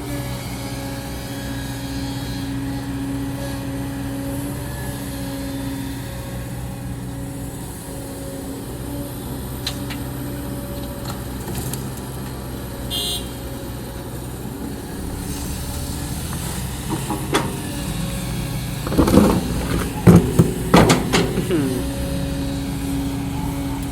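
Excavator diesel engine running steadily under hydraulic load. A cluster of loud, sharp metal clanks and scrapes comes near the end, as of the bucket striking and dragging through rock.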